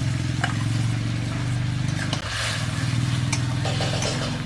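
A steady low motor hum, engine-like, dips briefly about two seconds in. Over it, a metal spatula scrapes and clicks a few times against an aluminium kadai as chicken is stirred into the sauce.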